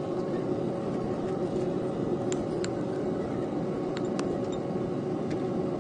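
Steady low workshop din of brass casting work, with a few light metallic clinks around the middle.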